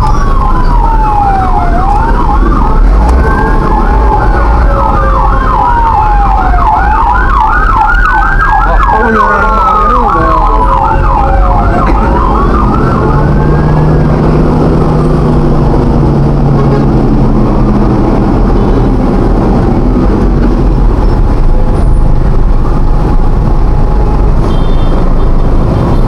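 Emergency vehicle siren sounding: a slow wail sweeping up and down overlapping a fast yelp, fading out about halfway through. A steady low engine and road rumble runs underneath.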